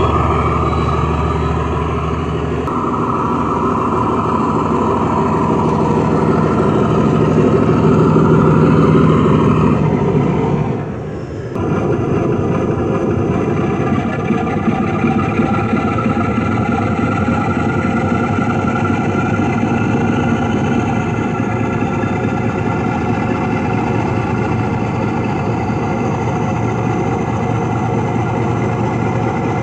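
Recorded Class 47 Sulzer 12LDA28 diesel engine sound played by an O gauge model locomotive's DCC sound decoder through a large passive radiator speaker, running continuously as the model moves. It dips briefly about ten seconds in, then runs on with a changed note.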